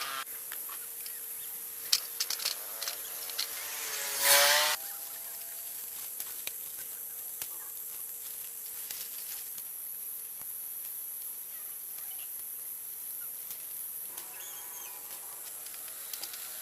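Steady high-pitched insect drone, with a few scattered clicks and one brief loud sound about four seconds in.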